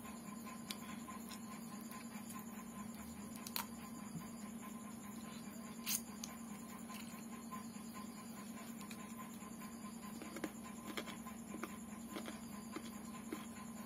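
A person eating rice and curry with the fingers: faint chewing with soft mouth smacks and clicks, the sharpest about six seconds in as the fingers go to the mouth, and a run of small clicks near the end. A steady low hum sits underneath.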